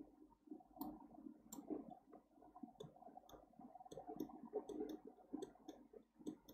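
Faint computer mouse clicks, a dozen or so short sharp clicks at irregular intervals, some in quick pairs, over a faint low background murmur.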